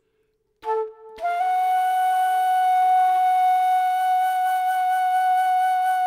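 Background music: a flute comes in about half a second in with a short note, then holds one long steady note that shifts slightly in pitch near the end.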